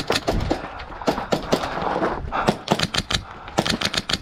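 Airsoft guns firing in rapid, irregular bursts of sharp cracks, several in quick succession, broken by short gaps.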